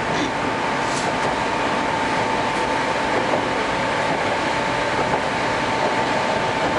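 Moscow Metro 81-765/766/767 train heard from inside the car while running between stations: a steady rumble of wheels on rail, with a steady high tone running through it.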